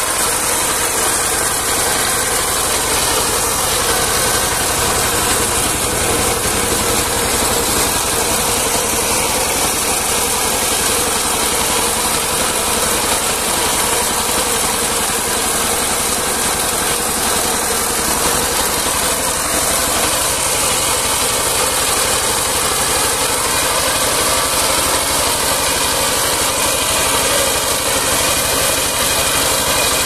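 Small engine of a ride-on rice reaper running steadily under load while its cutter header mows standing rice, a continuous mechanical noise with no pauses.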